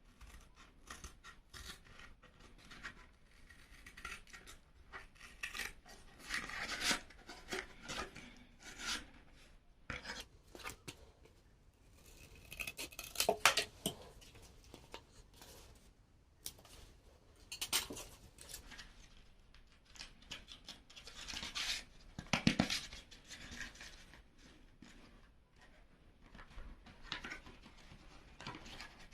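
Cardboard being cut and handled by hand: irregular scraping and cutting strokes, with a few louder clusters about halfway through and again about three-quarters of the way in.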